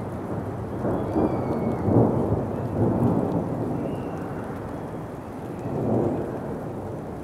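Low rumbling wind buffeting the microphone, swelling and easing in surges every second or so. Faint high bird chirps sound about a second in and again about four seconds in.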